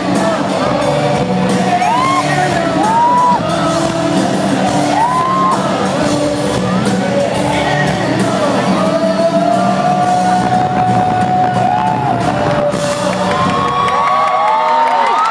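Live pop-rock band playing through a loud PA system, with fans in the crowd screaming and whooping over the music. The bass drops out about a second before the end, as the song finishes and the screams carry on.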